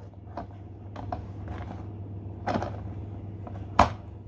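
A few light knocks and clicks from handling a cheesecake on a plastic cake turntable, the loudest just before the end, over a steady low hum.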